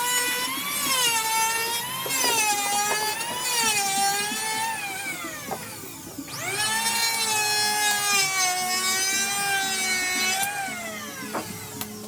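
A high-speed electric woodworking power tool whining as it cuts wood, its pitch sagging under load and recovering. Its pitch falls away about six seconds in, then it quickly spins back up to speed.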